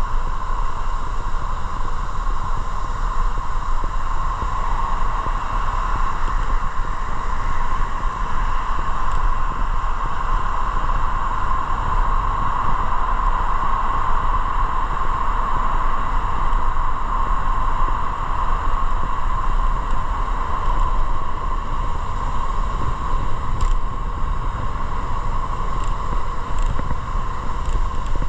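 Motorcycle being ridden at a steady speed: the engine runs evenly under a constant rush of wind over the microphone.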